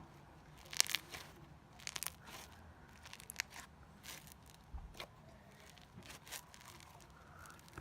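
Crunchy slime being squeezed and worked by hand, crackling and popping in irregular bursts.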